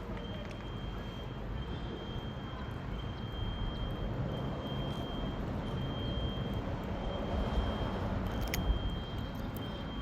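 Low, steady rumble of distant motor traffic that swells and eases off, with a thin high tone coming and going over it and a sharp click about eight and a half seconds in.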